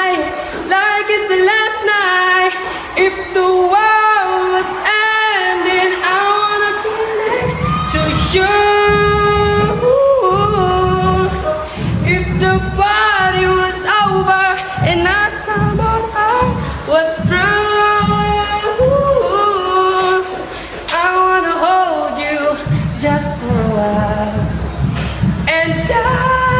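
A solo voice singing a slow melody with long held and sliding notes. A low accompaniment comes in under the voice about seven seconds in.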